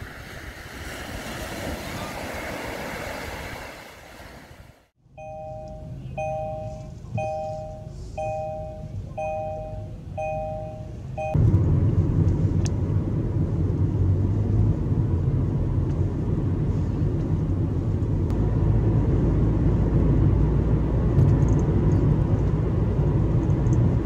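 Waves washing onto a sandy beach with wind. Then, after a sudden cut, a car's two-note warning chime repeats about once a second, seven times. From about 11 seconds in comes steady low road and engine noise inside a moving car.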